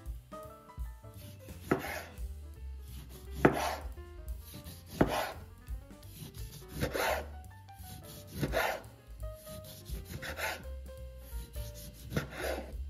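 Chef's knife slicing through a peeled orange and meeting the bamboo cutting board with each cut, about seven slices spaced every second and a half to two seconds, each a short scrape ending in a knock on the wood.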